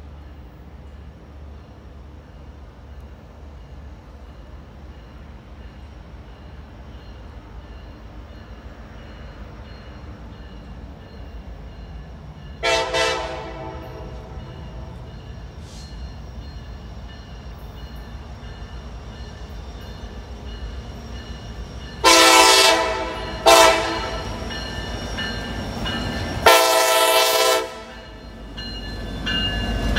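Norfolk Southern freight locomotive's multi-tone horn sounding the grade-crossing signal as the train approaches: a long blast about 13 s in, then a long, a short and a long blast in the last eight seconds. The low rumble of the oncoming train grows louder near the end, and a crossing bell ticks steadily in the background.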